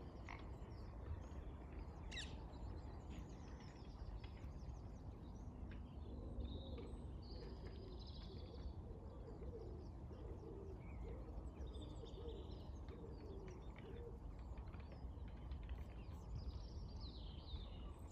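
Outdoor lakeside ambience: a steady low background rumble with small birds calling now and then in short high chirps, and a run of lower repeated calls through the middle.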